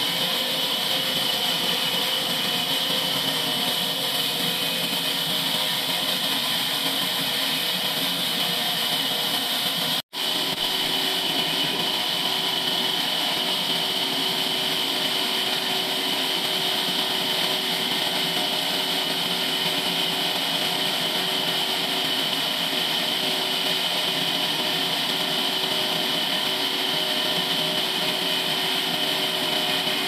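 Band sawmill running steadily, its blade cutting through a large log, with a high-pitched hiss over a steady machine hum. There is a momentary break about ten seconds in.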